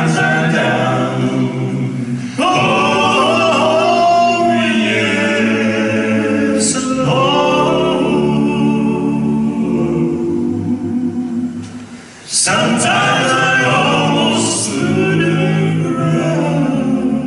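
Male vocal quartet singing a spiritual a cappella in close harmony, in held phrases with short breaks between them about two and a half seconds in and about twelve seconds in.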